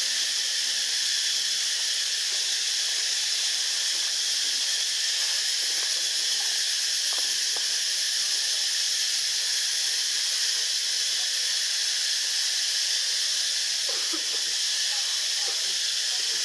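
Steady high-pitched hiss that does not change, with a few faint short sounds about 7 and 14 seconds in.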